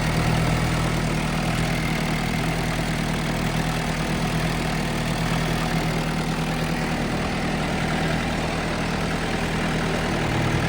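Case D40 tractor engine idling steadily, running so the power steering can be checked for leaks after new hoses were fitted.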